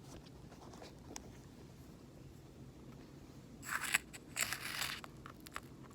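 Quiet room noise, then about four seconds in a short burst of crunchy rustling and clicking lasting about a second and a half: ground coffee and the plastic parts of a small electric blade coffee grinder being handled.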